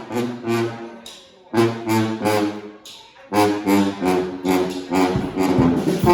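Brass band playing live: short, punchy horn phrases over repeated low bass notes, with two brief breaks in the first three seconds before the band plays on without a break.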